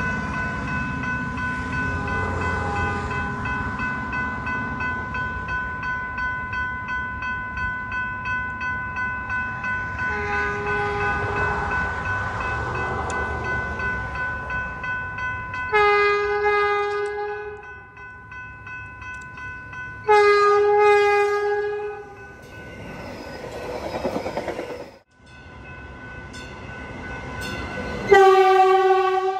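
Railroad crossing warning bell ringing in a steady pulse while the gates are down. A diesel multiple-unit train's horn sounds two blasts about 16 and 20 seconds in. After a break, the Stadler-built Redlands Arrow DMU sounds its horn again near the end.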